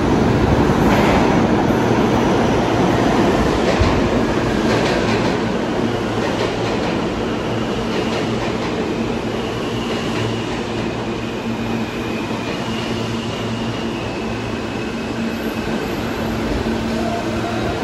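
New York City subway train running through a station, wheels clacking over rail joints during the first few seconds, with a faint high whine around the middle. The sound gets a little quieter over time.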